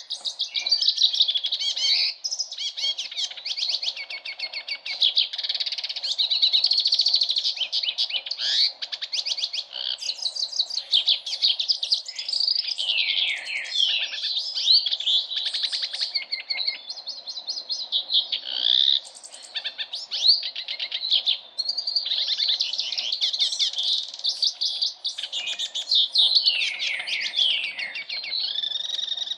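Caged male hooded siskin singing a long, continuous twittering song of rapid trills and warbles, broken by a couple of brief pauses.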